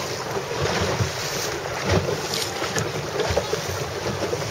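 Wind buffeting the microphone: a steady rushing noise with irregular low rumbling gusts.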